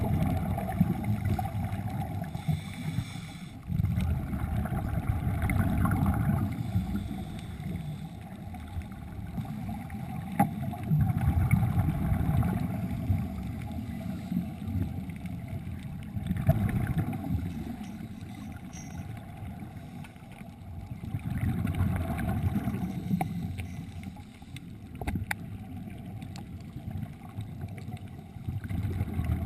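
Muffled underwater rushing and sloshing of water heard through a GoPro's waterproof housing, swelling and fading every few seconds, with a few faint clicks.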